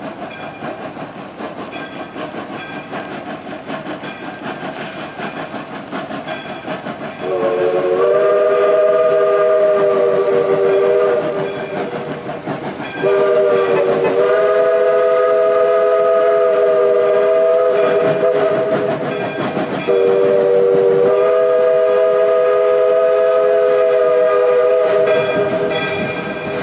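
Northern Pacific No. 924 steam locomotive running, then sounding its whistle in three long blasts, each a steady chord of several notes, much louder than the running noise; typical whistling for a road crossing.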